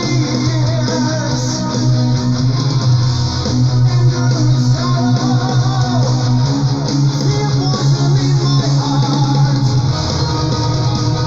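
Melodic metal music in an instrumental passage without vocals, led by electric guitars over a bass line.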